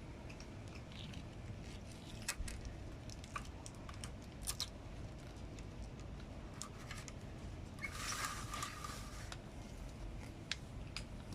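Cat chewing dry food: scattered faint crunching clicks, with a brief rustle about eight seconds in.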